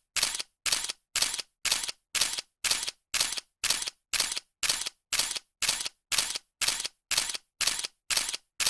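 Camera shutter clicking over and over at an even pace, about two and a half clicks a second, each a quick two-part clack with dead silence between.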